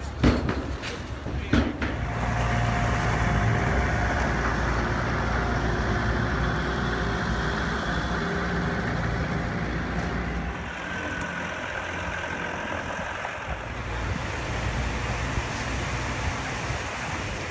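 Two sharp knocks in the first two seconds, then a truck's engine running steadily.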